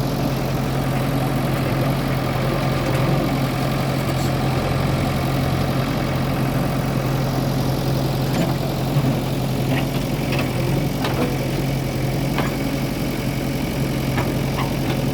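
JCB 3DX backhoe loader's diesel engine running at a steady speed, with a few short sharp knocks and clicks in the second half.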